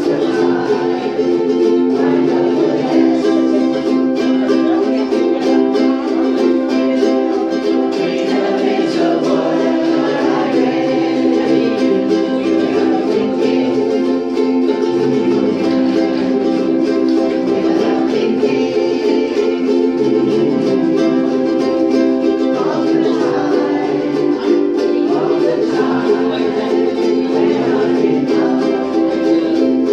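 A ukulele group strumming a song together in steady rhythm, with voices singing along.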